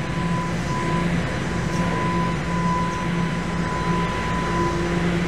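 Steady mechanical rumble and hum of a subway station, with a steady high whine over a low hum that comes and goes.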